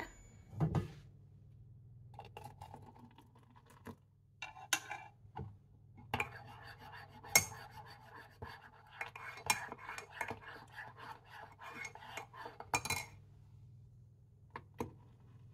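Kitchenware clinking and knocking: a spoon stirring and tapping in a ceramic mug while a saucepan of hot milk is handled beside it, in a run of irregular clinks over a low steady hum.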